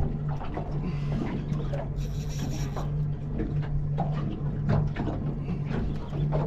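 Spinning reel being cranked in irregular strokes while a hooked fish is fought on a bent rod, over a steady low hum from the boat's outboard engine.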